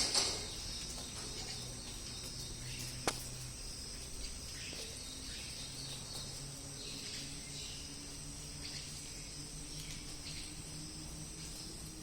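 Steady high-pitched outdoor insect chorus, like crickets, over a faint low hum, with a single sharp click about three seconds in.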